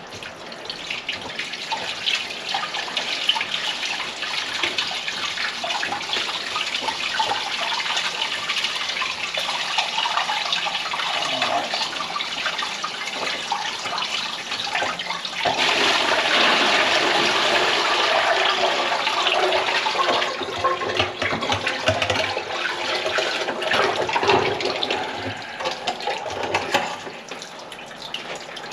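Water running steadily from the kitchen sink's drain pipe into a bucket, splashing. It gets louder about halfway through and eases off near the end.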